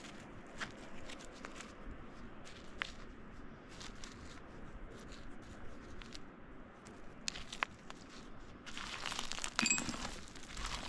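Digging by hand in loose rock and dirt: scattered small clicks and crunches of rock fragments, then about two seconds of louder scraping and rustling near the end, with a brief ringing clink in it.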